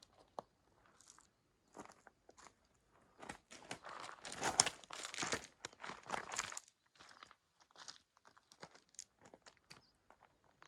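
Footsteps crunching on loose limestone gravel and scree, with small stones clicking. A dense run of crunching steps comes in the middle, with scattered single crunches before and after.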